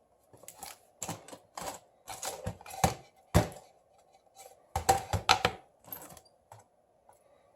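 Irregular sharp clicks and taps of a small screwdriver and phone parts on a workbench, over a faint steady hum, while screws are driven back into a Samsung Galaxy S7 Edge during reassembly.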